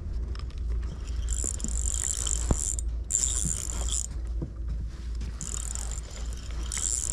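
Fishing reel whirring in four short spurts, each up to about a second and a half, while a hooked carp is played on the line.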